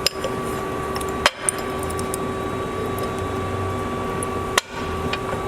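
Cosen AH-320H automatic band saw running with a steady hum. A few sharp metallic clicks come through: one at the start, two close together just over a second in, and one near the end.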